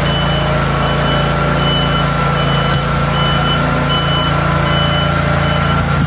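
Wood-Mizer LT40 hydraulic sawmill's engine running steadily, with a repeating electronic beep sounding about every three-quarters of a second that stops shortly before the end.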